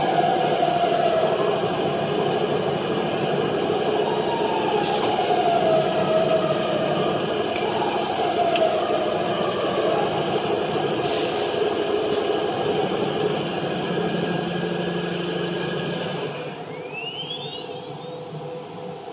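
CNC router running through an automatic tool change: a steady machine hum with wavering whines that dip in pitch as the axes move, a few short sharp sounds about five and eleven seconds in, and the spindle's whine rising in pitch as it spins up near the end.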